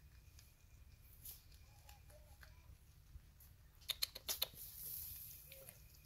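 Brush-tailed porcupine chewing leafy greens: faint, scattered crisp clicks, with a quick run of sharp, louder clicks about four seconds in, followed by a short hiss.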